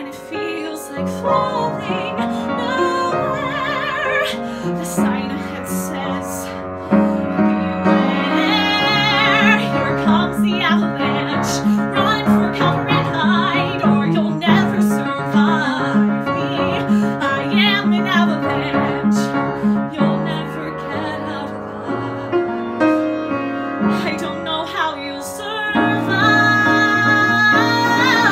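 A woman singing a musical-theatre song with vibrato over piano accompaniment. The piano plays steady repeated chords through the middle, and near the end the voice swells into a loud, held high note.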